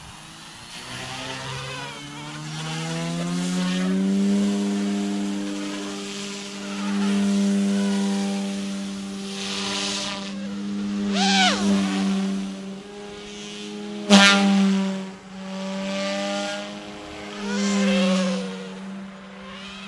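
OMPHOBBY M2 Explore RC helicopter spooling up: its rotor and motor hum rises in pitch over the first few seconds, then holds steady in flight, swelling and fading as it moves about. A single sharp, loud crack about fourteen seconds in.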